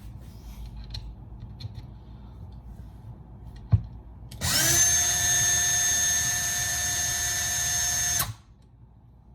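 A power drill spins up quickly and runs at a steady speed for about four seconds with a high whine, then stops abruptly. A single sharp knock comes just before it.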